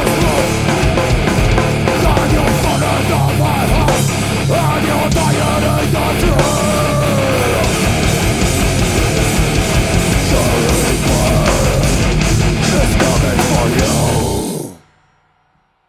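Heavy rock band playing live with guitar, bass and drums, with bending guitar notes, then cutting off abruptly near the end into near silence.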